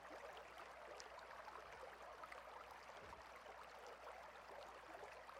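Faint, steady rush of mountain-stream water, with a low steady hum underneath.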